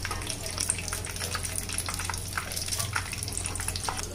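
Stuffed layered-pastry patty deep-frying in hot oil: the oil bubbling and sizzling with many small sharp crackles and pops throughout.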